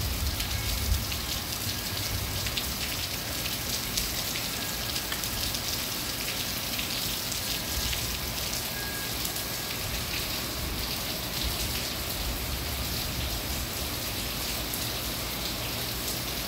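Rain falling steadily on garden shrubs and lawn: an even hiss with scattered drop ticks.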